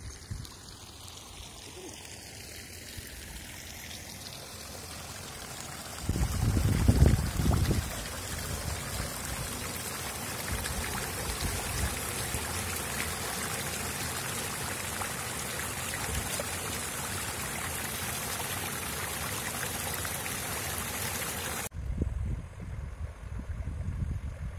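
Rainwater rushing in a shallow channel through grass: a steady hiss of flowing water that grows slowly louder. A loud low rumble comes in for a couple of seconds about six seconds in. Near the end the water sound cuts off abruptly, and uneven low rumbling follows.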